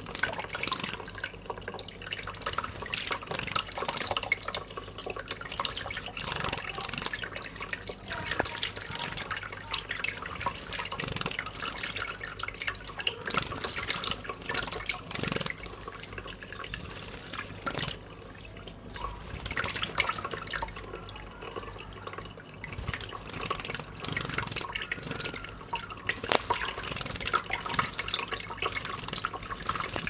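Thin stream of tap water running into cupped hands, with irregular splashing and dripping as a small bird bathes and flutters in the pooled water.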